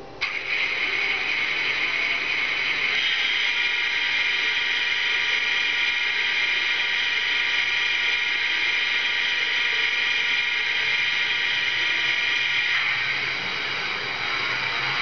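ESU sound decoder in a model BDZ class 07 diesel locomotive, playing its diesel engine sound through the model's small loudspeaker. The sound comes on abruptly and runs steadily as a high, whining mix of many held tones. The tone thickens a few seconds in, its lower part drops away near the end, and the pitch starts to glide at the very end.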